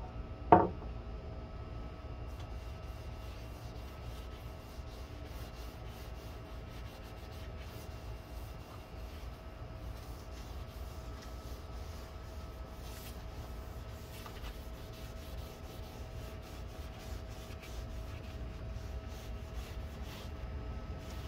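A cloth rubbing wood stain into a wooden board: soft, irregular scrubbing strokes over a steady background hum. A single sharp knock sounds about half a second in.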